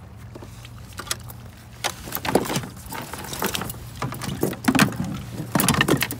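Irregular knocks, clatters and rustling as a landed fish and fishing gear are handled on a plastic fishing kayak's deck, over a steady low hum.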